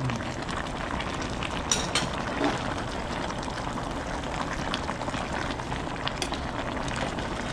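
Sinigang na tilapia (sour fish soup with vegetables) boiling in a stainless steel pan, a steady bubbling. There are a few light clinks of a utensil against the pan, mostly about two seconds in.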